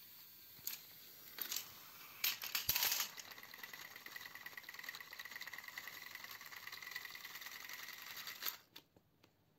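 Battery-powered toy train motors running with a steady whirring gear whine as the coupled trains move along plastic track. Clicks and a burst of rattling about two to three seconds in are the loudest part; the whir stops about eight and a half seconds in.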